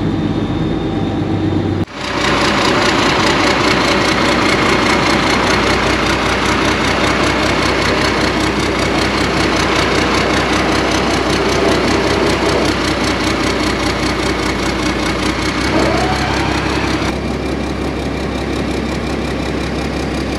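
Alvis Stalwart's turbo diesel engine running, with the Hiab crane's hydraulics working the boom. The sound becomes louder and fuller about two seconds in, gives a short rising whine near the end, and then eases back.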